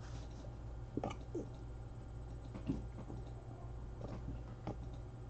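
Quiet room tone: a steady low hum with a few faint, scattered clicks and taps.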